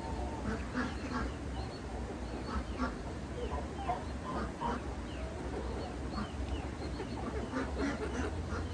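Domestic geese calling, a string of short honks repeated throughout.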